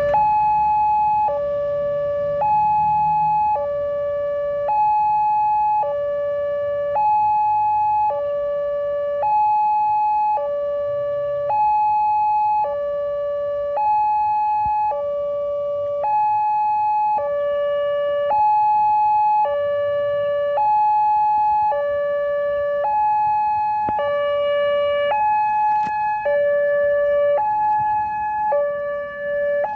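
Railway level-crossing warning alarm sounding an electronic two-tone signal, a higher and a lower tone alternating about once a second. It warns that a train is approaching as the crossing closes.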